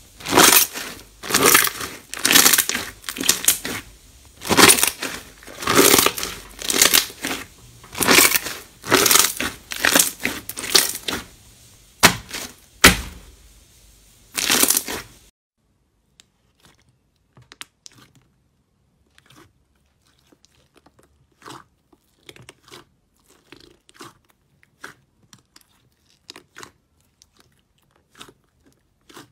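Hands squeezing and kneading pink fluffy slime, a loud squish about once a second for some fifteen seconds. Then, much quieter, faint scattered clicks as fingers press clear slime in a plastic tub.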